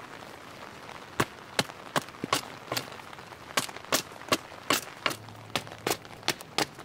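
Hatchet blade cutting down a wooden stick in quick, crisp strokes, about two or three a second, carving kindling shavings (feather sticks), over a light hiss of rain.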